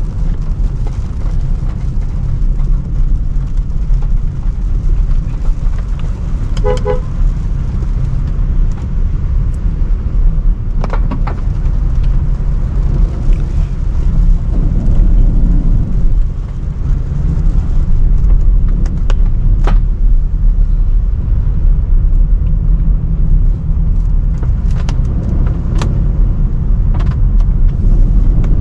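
Range Rover Sport driving, a steady low rumble of road and engine noise. A vehicle horn toots once, briefly, about seven seconds in, and scattered short clicks come and go.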